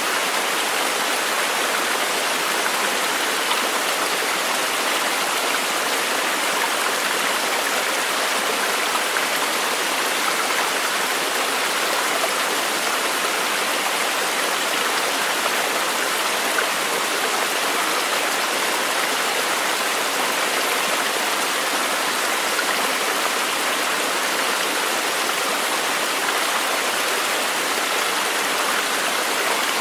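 Flowing water rushing steadily, with no single splashes or breaks.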